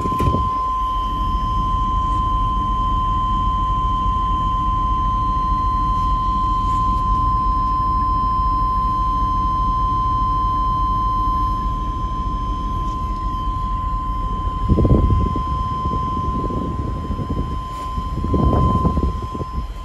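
Chevy Express 3500 engine idling, heard from inside the cab as a steady low rumble. A constant high-pitched tone runs over it. Two brief louder bumps of low noise come near the end.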